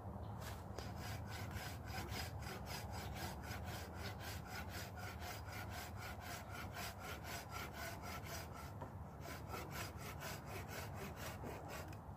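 Silky Gomboy folding saw cutting through a branch, in a steady rhythm of about four strokes a second that stops shortly before the end.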